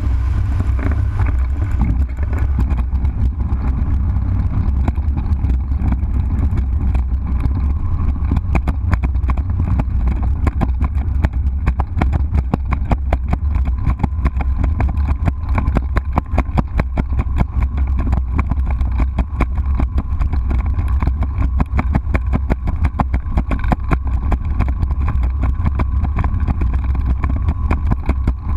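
Rotax 912 flat-four engine of a P&M Quantum flexwing microlight running steadily with a deep drone, under a rapid, irregular clatter of knocks.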